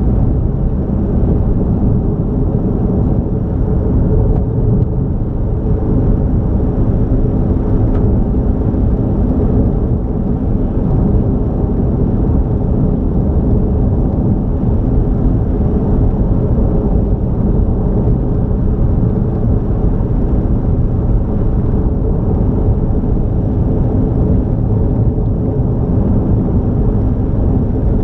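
A car driving steadily down a highway: an even, loud rumble of engine and tyre noise that holds without change.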